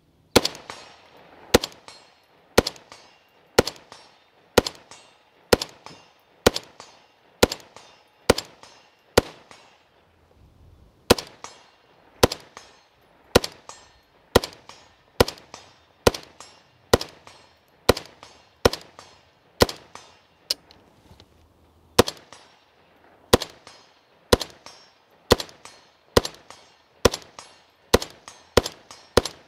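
PSA KS47, a 7.62x39 AR-15, fired semi-automatically in a slow, steady string of about one shot a second. There are brief pauses about ten seconds in and again about twenty seconds in, and roughly thirty shots in all.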